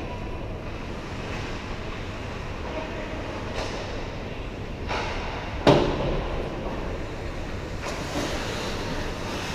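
Ice hockey on an indoor rink: a steady rumble of the rink hall, a few brief scrapes of skates on the ice, and one sharp knock a little past halfway through, the loudest sound.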